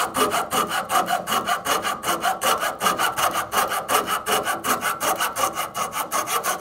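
Coping saw cutting a curve through a small block of wood, in quick, even to-and-fro strokes, about five a second.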